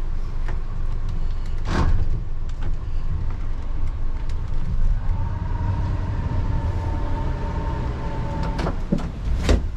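Motor cruiser's engine running steadily at low speed while the boat is manoeuvred alongside a lock wall. A steady higher whine joins in from about five seconds in for a few seconds, and there are a couple of sharp knocks, one about two seconds in and one near the end.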